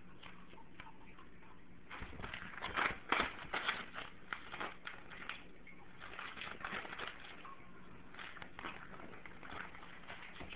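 Sheets of paper rustling and crinkling as a pug puppy chews and paws at them, in crackly bursts that start about two seconds in and are loudest over the next two seconds.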